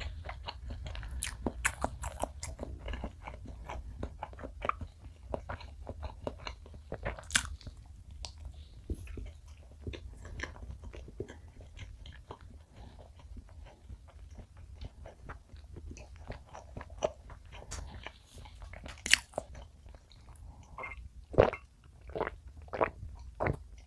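Close-miked wet chewing of soft chocolate castella sponge cake with orange jam: many small sticky mouth clicks and smacks. Near the end, a few sips of milk from a glass, with louder clicks.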